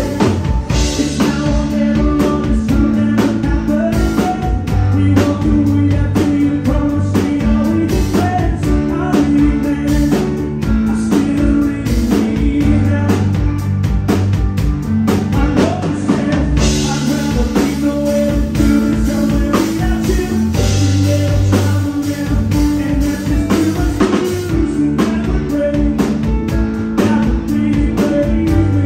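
Band playing a rock song: drum kit keeping a steady beat under guitar and bass.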